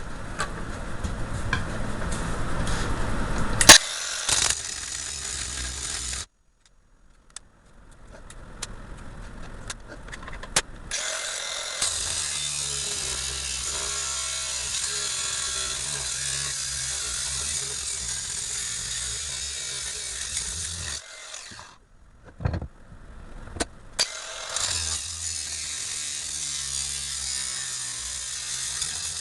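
Angle grinder with a cutoff wheel cutting through a starter motor armature's copper windings at the commutator end, a steady high grinding noise over the motor's hum. The cutting stops twice briefly, with a few sharp clicks around the second stop.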